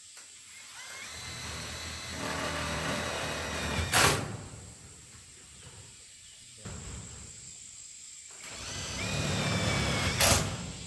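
A power tool motor runs twice for a few seconds each time, its pitch rising as it speeds up. Each run ends in a sharp, loud crack.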